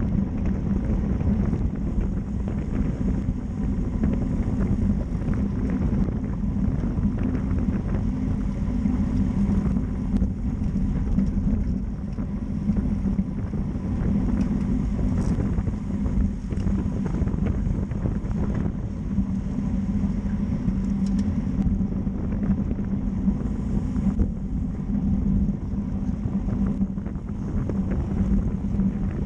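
Steady wind rush on the microphone of a road-bike-mounted camera riding in a racing group at 25 to 30 mph, with a constant low rumble of road noise beneath.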